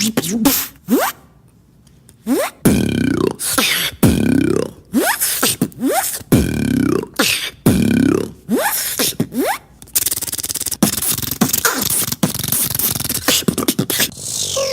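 Beatboxer making sound effects with mouth and voice: four repeated swooping pitched sounds, then a rapid crackling, clicking noise for the last few seconds.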